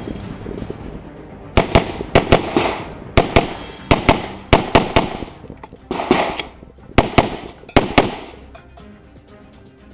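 Semi-automatic pistol fired rapidly at a practical-shooting stage: sharp shots mostly in quick pairs (double taps) from about a second and a half in until about eight seconds in, each with a short echo.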